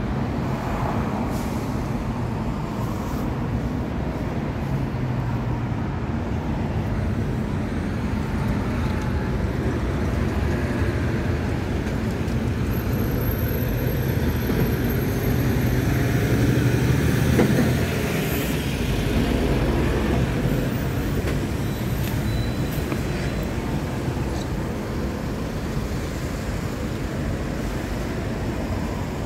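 Road traffic going by: a steady rumble of passing vehicles, swelling as one goes past close by and loudest about seventeen seconds in.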